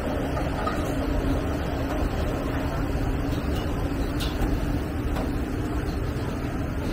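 Street noise with a steady vehicle engine hum, fading after about four seconds.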